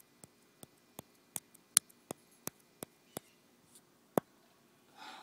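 Sharp, short clicks, about two or three a second, thinning out after about three seconds, then a brief rustle near the end.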